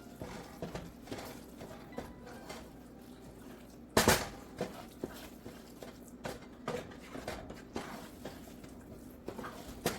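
A spoon clinking and scraping against a cooking pot as rice is stirred and fried in a tomato mix, with one loud clack about four seconds in.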